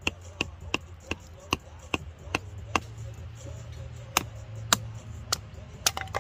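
Rubber mallet knocking on the spine of a knife blade set into a stick of firewood, batoning it to split kindling: a steady run of sharp knocks, about two or three a second, some fourteen in all.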